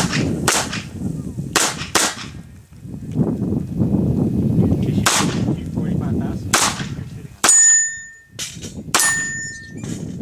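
Pistol shots fired at irregular intervals, about eight in all. The last two are each followed by a ringing steel target.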